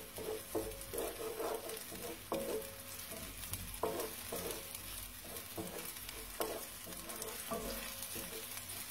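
Chopped onion sizzling in oil in a pan as it softens, with a utensil stirring it and scraping the pan in irregular strokes about once a second.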